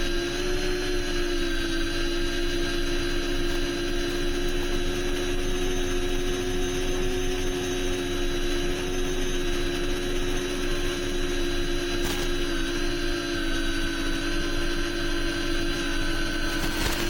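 FPV quadcopter's electric motors and propellers whining steadily at a near-constant throttle, with a brief click about twelve seconds in and a few quick clicks at the very end.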